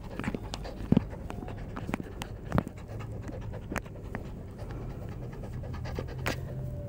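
Beagle puppy panting hard while tugging at a sandal, with irregular sharp knocks and scuffs of the sandal being pulled and shaken. A low steady hum comes in about three seconds in.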